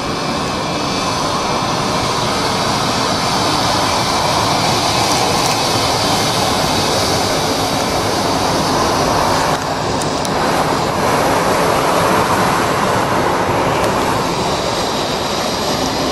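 Swiss Bombardier CS100's Pratt & Whitney PW1500G geared turbofan engines running at taxi power as the airliner rolls past close by: a loud, steady jet rush, with a short drop in level about ten seconds in.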